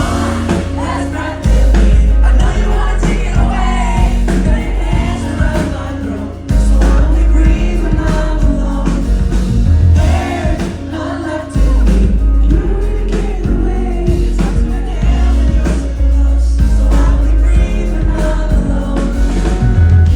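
Live pop-rock band playing a song with singing over a heavy bass line, loud.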